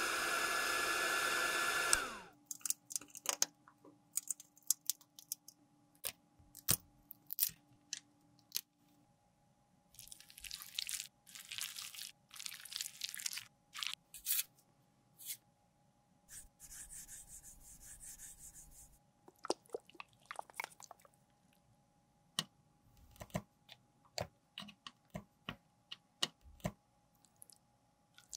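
Heat gun blowing hot air onto an eyeshadow compact, a steady whining hiss that cuts off about two seconds in. It is followed by small clicks and taps of handling, crinkling of an alcohol pad packet being opened, and light scraping of tweezers in the emptied pan wells.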